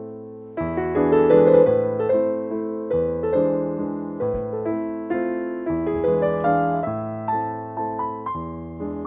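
Background piano music: soft chords and a melody, notes struck and left to ring.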